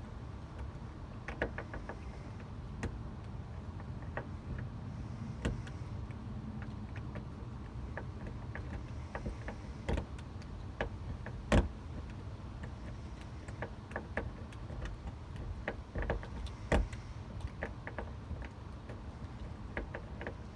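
Irregular metallic clicks and taps of lock-picking tools working a Weiser door knob lock that is tight and corroded, with a sharper knock about halfway through and another a few seconds later.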